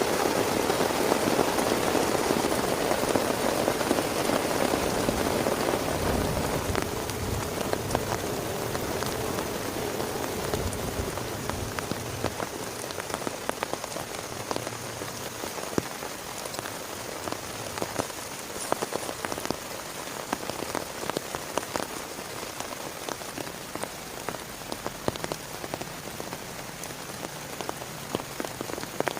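Rain falling, with many individual drops tapping sharply on a surface close by. Heavy at first, it eases over roughly the first dozen seconds, then settles into a lighter steady patter.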